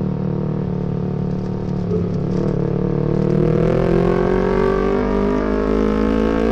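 Yamaha MT-25's 250 cc parallel-twin engine running at low revs, then rising steadily in pitch from about two seconds in as the bike accelerates gently, holding steady near the end.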